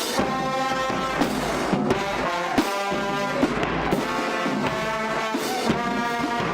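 Brass band music: held brass notes and chords over regular drum hits.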